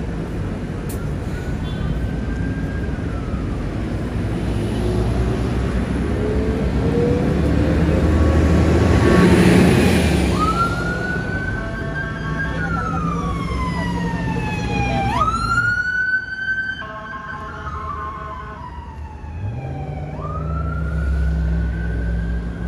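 Emergency vehicle siren wailing: three times, from about ten seconds in, it slides up to a held high note, then falls slowly. Underneath is the steady noise of street traffic and an engine, loudest just before the siren starts.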